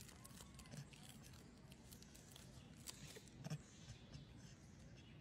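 Near silence: faint background with a few short, soft clicks, two of them a little more marked about three and three and a half seconds in.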